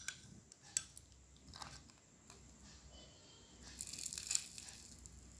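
Crisp batter of a fried stuffed tofu (tahu berontak) crackling as fingers squeeze and tear it: a few faint crackles, then a louder spell of crackling about four seconds in.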